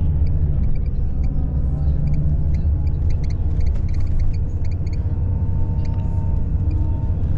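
Intercity coach heard from inside the passenger cabin while under way: a steady low rumble of engine and road noise, with faint scattered clicks of interior rattles.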